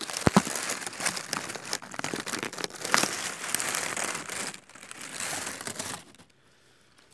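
Rustling and crackling handling noise on the phone's microphone, dense with sharp clicks, which cuts off suddenly about six seconds in.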